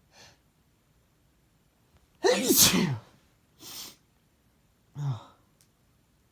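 A man sneezing once, loud and voiced, the pitch of his voice falling through the sneeze. A quick sharp breath follows about a second later, then a short low voiced sound.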